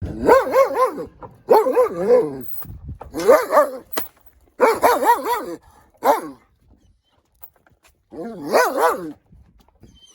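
A dog barking in quick runs of three to five high, yappy barks, about six runs with short pauses between them.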